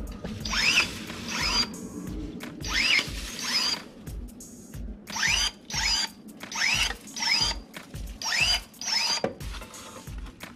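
Cordless electric pruning shears with a brushless motor, cutting woody tree branches: each stroke is a short rising whine as the motor snaps the blade shut and drives it open again. The strokes come about ten times, often in quick pairs.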